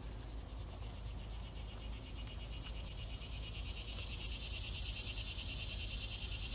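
Insects trilling in a fast, steady pulse that grows louder a few seconds in, over a low background rumble.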